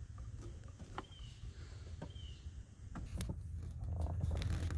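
Scattered clicks and rustling of a wire being handled and fed through behind the truck's dash, growing louder in the last couple of seconds. Short high chirps sound about once a second over a steady low rumble.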